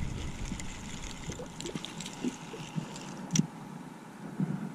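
Light knocks and clicks from fishing tackle being handled in a small boat, with one sharp click about three and a half seconds in.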